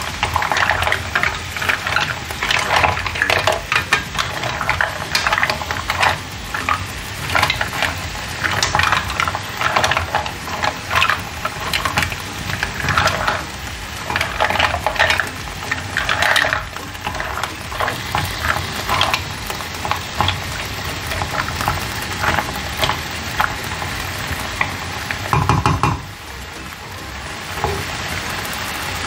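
Mussel shells clattering against each other and the pan as they are stirred with a silicone spatula in sizzling garlic butter. A low thump comes near the end, after which the clatter dies down and mostly the frying sizzle is left.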